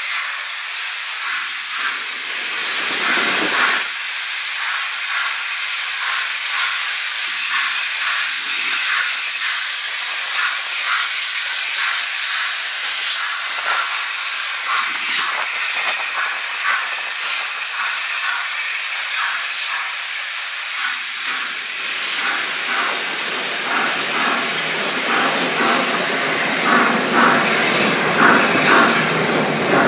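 LNER A4 three-cylinder Pacific steam locomotive No. 60009 Union of South Africa passing close by, with a loud hiss of steam over a quick run of beats. Near the end a lower rumble joins in as the coaches roll past.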